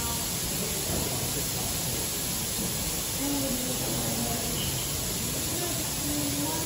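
Steam tank locomotive standing at the platform, leaking steam with a steady hiss.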